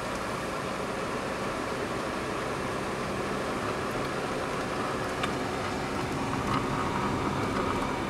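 Citroën car driving steadily, its engine running and road noise heard from inside the cabin, getting a little louder after about six seconds.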